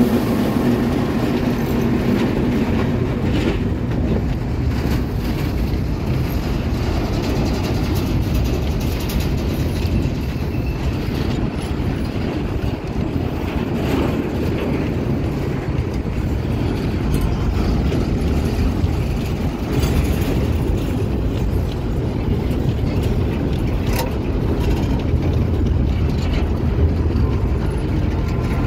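Empty grain hopper wagons of a freight train rolling past at close range: a steady rumble and clatter of steel wheels on the rails, with scattered sharp clicks. A diesel locomotive's engine trails off in the first couple of seconds.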